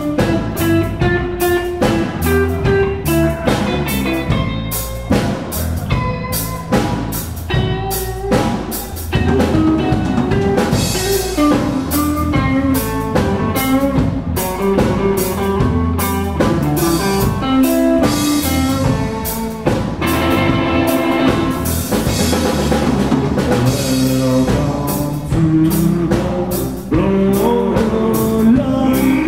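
A live rock trio playing an instrumental passage: electric guitar, electric bass and a drum kit, with no singing.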